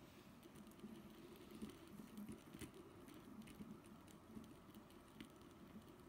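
Magnetic fidget spinners set spinning by a flick, their bearings whirring faintly under irregular light clicks and ticks as the magnets jostle them into jerky, chaotic motion.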